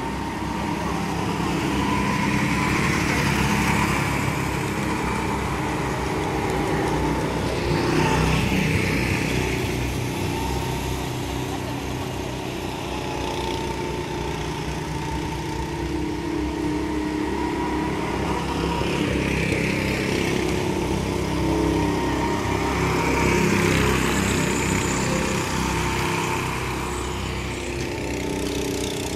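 Go-kart engines running with a steady buzz as karts circle the track. The sound swells several times as karts come close and fades as they move away.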